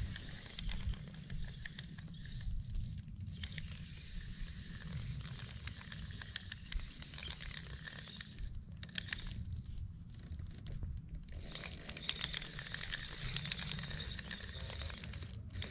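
Wind on an outdoor microphone: a steady, fluttering low rumble under an even hiss, with no distinct events.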